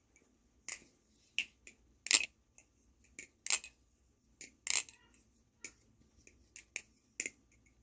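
Kraken clone balisong (butterfly knife) being flipped: about ten sharp, crisp clicks at irregular spacing as the handles swing and close. The pivots are tuned with no rattle or tap.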